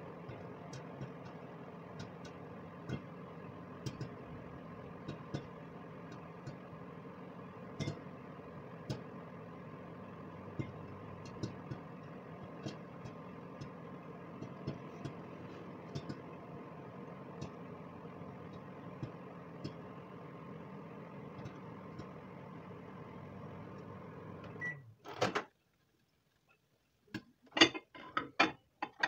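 Microwave oven running with a steady hum while popcorn pops inside in scattered single pops about a second apart, the sign that the batch is nearly done. The hum cuts off suddenly about 25 seconds in, followed by a short burst and then a few knocks and clatters near the end.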